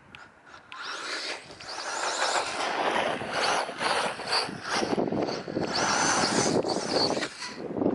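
Brushless electric RC short course truck driving over rough ground: a rattling rush of tyres and drivetrain with the motor's high whine rising and falling in pitch. It picks up about a second in, eases off briefly in the middle and cuts off near the end.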